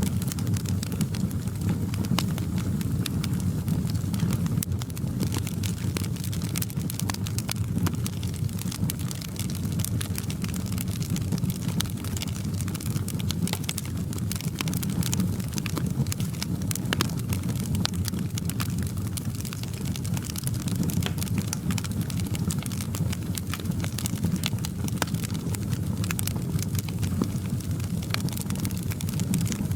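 Wood fire crackling in a fireplace: a steady low rumble of flames with many small sharp pops and snaps scattered throughout.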